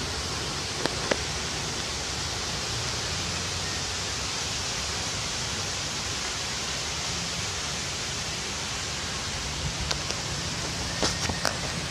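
Strong wind blowing through trees: a steady rushing noise, with a few short sharp clicks about a second in and again near the end.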